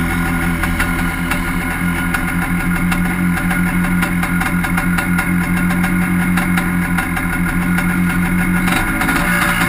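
Honda FL400R Pilot buggy's single-cylinder four-stroke engine idling steadily, heard from the driver's seat. Its steady tone changes and drops away shortly before the end.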